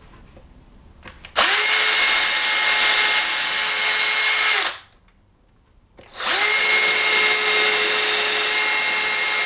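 Bauer cordless drill running at a steady speed in two runs of about three seconds each, the first starting about a second and a half in and the second about six seconds in, boring the marked screw holes for a roller-shade end bracket into the wooden window jamb.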